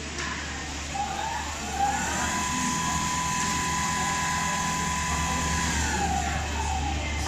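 Richpeace automatic cushion-case sewing machine running: its drive motors whine, rising in pitch about two seconds in, holding steady for a few seconds and falling again as the head moves along the seam, over a steady low machine hum.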